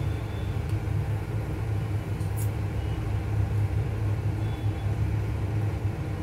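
A steady low hum, with a light click about two and a half seconds in.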